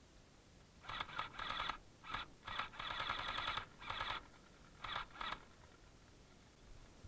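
Electric gel blaster firing a string of short full-auto bursts, about eight in four seconds, each a brief buzzing rattle with quiet gaps between.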